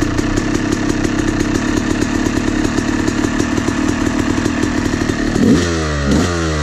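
Yamaha YZ250 two-stroke dirt bike engine idling steadily, then blipped twice near the end, the pitch rising with each throttle blip.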